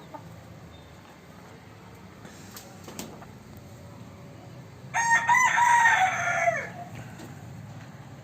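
A gavran (desi country-breed) rooster crowing once, about five seconds in: a call of under two seconds that drops in pitch at the end.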